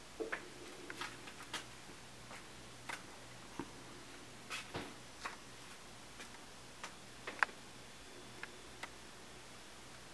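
Faint, irregularly spaced light clicks and taps from a handheld camera being moved around a small room, over a low steady hum.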